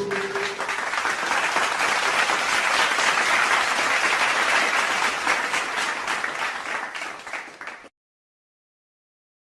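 Crowd applauding, a stock applause sound effect: dense clapping that fades out and stops about eight seconds in, followed by dead silence.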